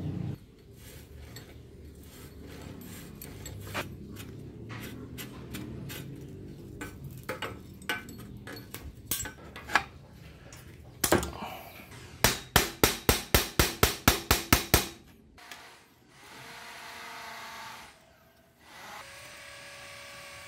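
Metal hand tools clinking and knocking against a rusty steel bicycle frame while the crank and bottom-bracket cup are worked loose. About halfway through comes one loud knock, then a run of about ten sharp hammer blows at roughly four a second, followed by a steady hiss.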